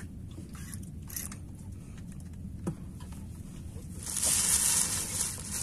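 Wind and sea noise on an open boat: a steady low rumble, with a hissing rush about four seconds in that lasts over a second.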